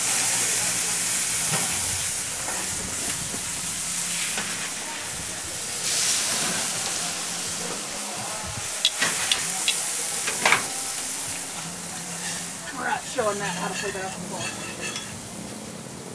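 Ribs sizzling on a gas grill, a steady hiss, with a few sharp clinks a little past the middle.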